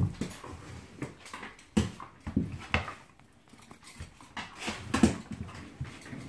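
Two dogs play-fighting: irregular short growls and grunts mixed with scuffling and mouthing, loudest just at the start and again about five seconds in.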